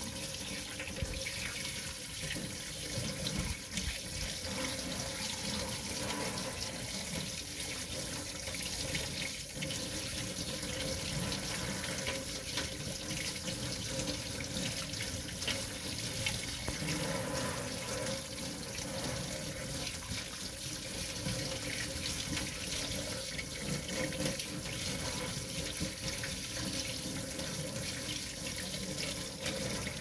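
Kitchen faucet spray head running steadily, water splashing over hands and a frog into a stainless steel sink.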